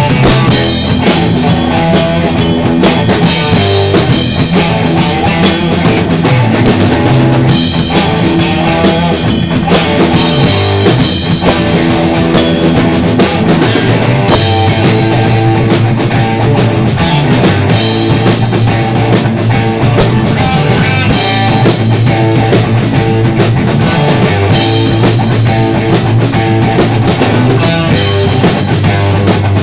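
A rock band playing loud, with a drum kit, guitar and bass.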